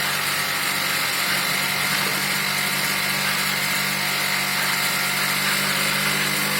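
A steady machine noise, running evenly throughout with a constant hum and hiss.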